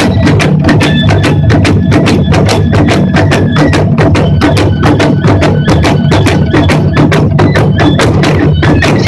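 Japanese taiko drums played by an ensemble in a fast, driving rhythm: sharp, crisp stick strikes over a steady low boom of the big drums.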